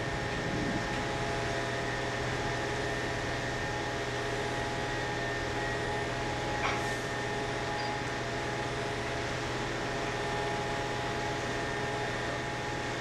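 Zipper truck's engine running steadily as the truck creeps under the concrete arch, with a faint click about seven seconds in.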